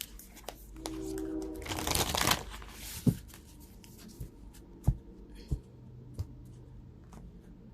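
A deck of oracle cards being shuffled by hand: a short rustling flurry about two seconds in, followed by several sharp, separate card taps and clicks.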